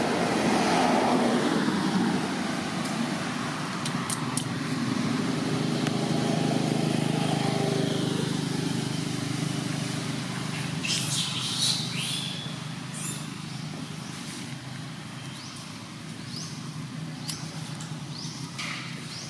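A motor vehicle's engine running, fading out over the first half, over outdoor background noise; a few short high chirps come about eleven seconds in.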